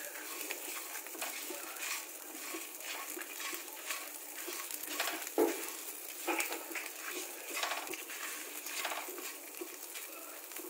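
A spatula stirring and scraping whole dried red chillies, garlic cloves and salt around a wok, with a light sizzle of oil as the chillies are roasted until lightly browned. Scattered small clicks of the spatula on the pan, and one sharper knock about five seconds in.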